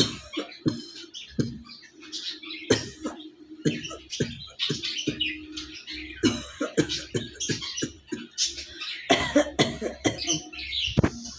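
A woman coughing over and over in short, irregular, deliberate bursts for a cough challenge, hard enough to strain her throat.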